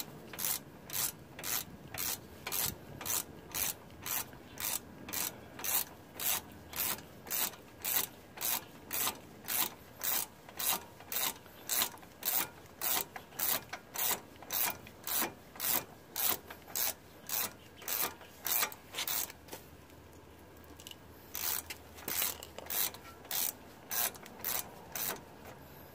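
Hand ratchet wrench on a socket extension, worked back and forth on a bolt, its pawl clicking in short bursts about twice a second. It pauses once about three-quarters of the way through, then resumes.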